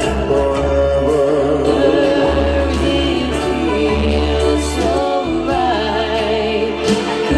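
Dance music with a singing voice over a bass line.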